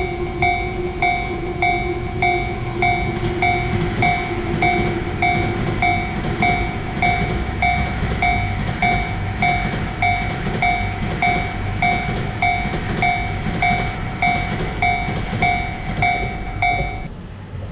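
Japanese railway level-crossing alarm ringing its repeated ding, about two strokes a second, over the rumble of a passing train. The alarm stops near the end.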